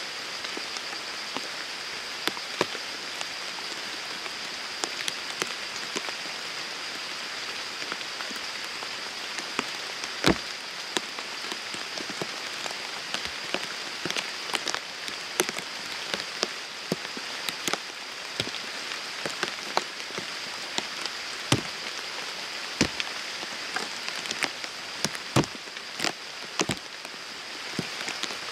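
Steady rain falling, an even hiss with many scattered sharp drop taps, a few of them louder. A faint steady high-pitched hum runs underneath.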